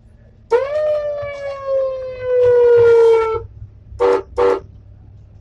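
A loud horn gives one long blast, its pitch sagging slightly over about three seconds, then two short blasts, over a steady low rumble.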